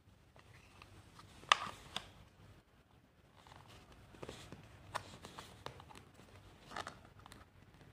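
Hard plastic side cover of a racing-style chair being handled and pressed onto the seat frame: scattered short clicks and knocks, the sharpest about one and a half seconds in.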